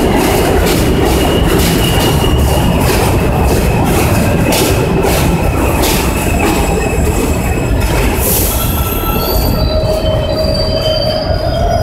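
New York City subway train pulling into the station alongside the platform: a steady loud rumble of steel wheels on rail, with regular clacks over rail joints and a thin squeal. In the last few seconds, as it slows, several high squealing tones from the brakes and wheels appear.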